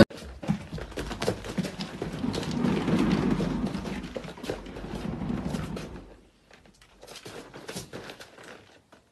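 A cat running, its paws thumping rapidly on a hard surface in a quick clatter. After about six seconds it thins to fainter, scattered taps.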